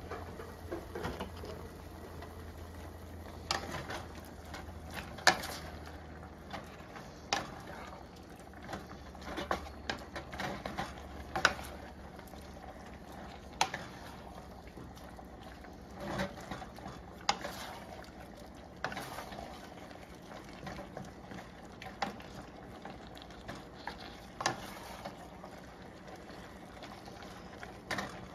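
A stir fry sizzling steadily in a hot pan on high heat as its sauce thickens. A wooden spatula knocks and scrapes against the pan every second or two while the food is stirred.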